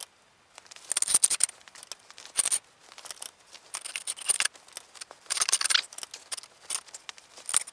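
A steel jack stand and a floor jack's handle being worked by hand, giving irregular clusters of sharp metallic clicks and rattles.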